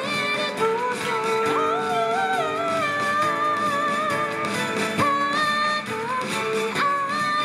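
Live Okinawan folk song: women singing held notes that slide and bend between pitches, over plucked string accompaniment.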